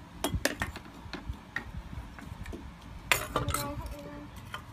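Metal spoon and fork clinking and scraping against a plastic plate: scattered light clicks, busiest about three seconds in.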